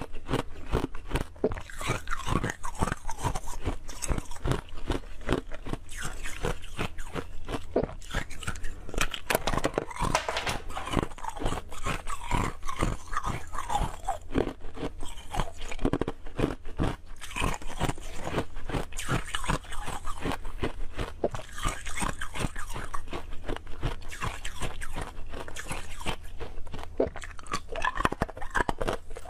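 Ice cubes crunched and chewed between the teeth, close to the microphone: a dense, unbroken run of sharp cracking crunches.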